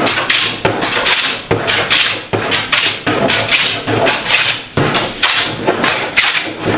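Jack plane pushed across the grain of a glued-up cedar board in quick repeated strokes, a rasping shave with a click on each pass, close to two strokes a second.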